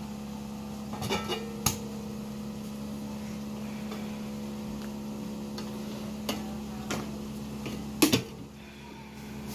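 A few knocks and clinks of a metal food can and kitchenware being handled, the loudest a double knock about eight seconds in, over a steady low hum.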